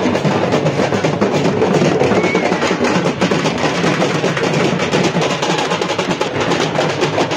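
Music carried by rapid, dense drumming and percussion that keeps up without a break.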